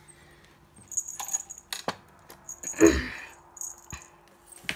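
Light metallic jingling and clicks as a cat wand toy is shaken and handled over a cardboard box, with a heavier thump about three seconds in. A faint steady hum runs underneath.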